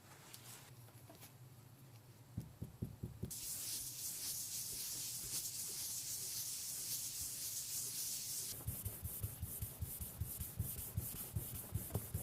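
Abrasive rubbing on a resin knife: a steady hiss starting about three seconds in, then rhythmic back-and-forth strokes from about eight and a half seconds.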